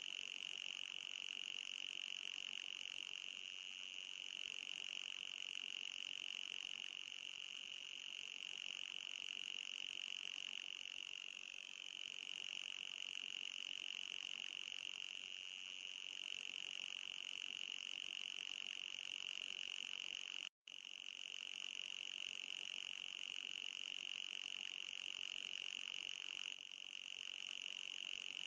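Steady high-pitched electronic tone of an anti-mosquito repeller sound, strongest near 3 kHz with a fainter higher band above it. It cuts out for an instant about two-thirds of the way through, then resumes unchanged.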